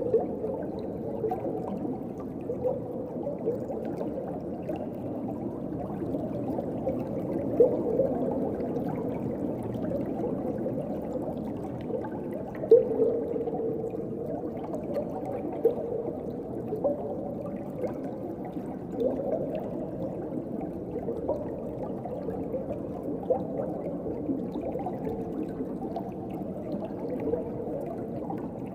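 Underwater water ambience: a steady muffled wash of water with scattered gurgling bubbles, a few of them louder.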